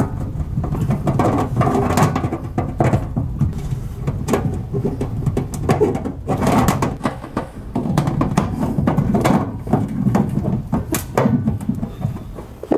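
Rubber pinch-weld edge trim being pressed by hand onto the rim of a galvanised steel toolbox, with irregular knocks, taps and scrapes against the metal box.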